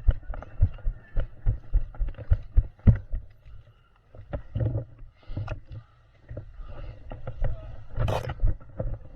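Footsteps and bumps of gear on a body-worn camera's microphone: steady low thuds about three a second that stop about three seconds in, then a few scattered thuds and a short rustling brush near the end.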